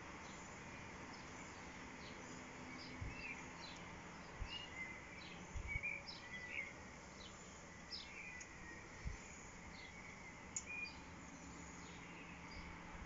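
Small birds chirping and calling intermittently over a faint steady background hiss, with a few soft low bumps.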